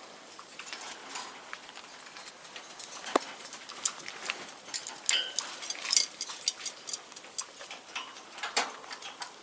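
Alexandrine parakeet biting and chewing at a foot toy: irregular clicks, snaps and crunches of its beak on the toy, with a sharp crack about three seconds in.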